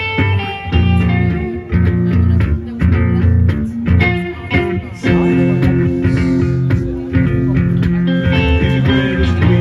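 Live band playing an instrumental passage, with electric guitar and bass guitar over sustained low notes.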